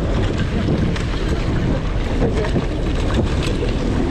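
Strong wind buffeting the microphone over the rush of rough sea around a small fishing boat, with scattered brief splashes and knocks.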